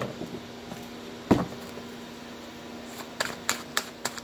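Hands handling a deck of tarot cards on a table: a thump about a second in, then from about three seconds a quick run of card taps, about four a second, as the deck is shuffled. A steady hum runs underneath.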